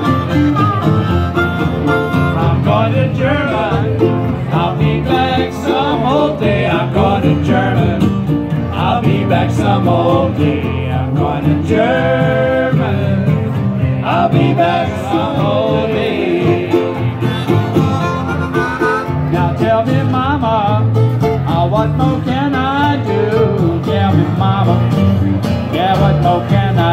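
Live acoustic string-band music: harmonica, acoustic and archtop guitars and upright bass playing an old jug-band tune, with a man singing lead into the microphone.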